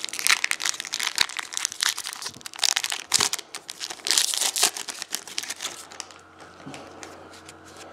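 Foil wrapper of a Topps football jumbo card pack being torn open and crinkled by hand, a dense crackling for about five seconds that then drops to fainter rustling.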